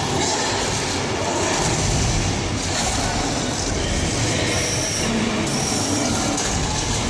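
Soundtrack of a 3-D theme-park ride in which a giant ape fights dinosaurs, played loud around the tram: a continuous dense rumble with no breaks.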